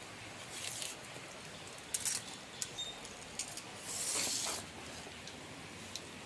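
Faint handling noise: light scuffs, rustles and a few small clicks, with a longer scrape about four seconds in.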